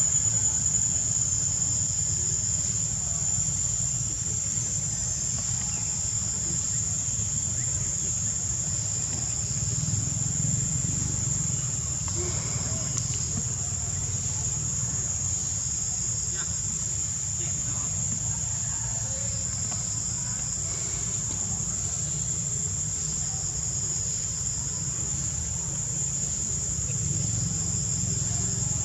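A steady high-pitched drone of insects, with a low rumble underneath.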